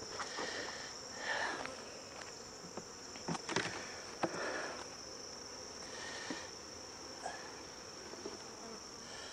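Honeybees humming around an opened hive over a steady, high-pitched insect drone. A little over three seconds in, a metal frame lifter pries a wooden hive frame loose with a few sharp cracks and knocks.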